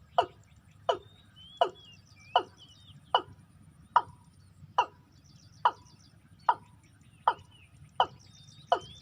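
Watercock calling: a short, sharply falling note repeated steadily about every 0.8 seconds, around a dozen times. Fainter high chirps from other small birds and a thin insect whine sit behind it.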